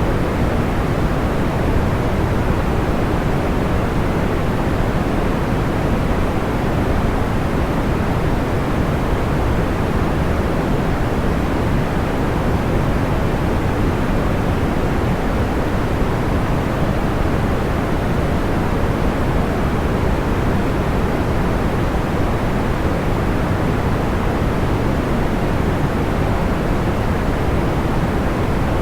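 Steady white noise, heavier in the low range, with no separate crackles or pops.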